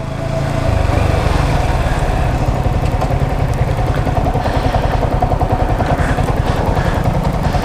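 Motorcycle engine, a Yamaha R15's single-cylinder, running as the bike pulls away and rides on, getting louder over the first second and then holding steady.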